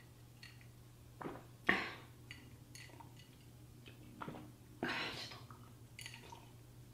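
A woman drinking from a glass: a few soft swallows and breaths between sips, with a few small clicks, over a steady low room hum.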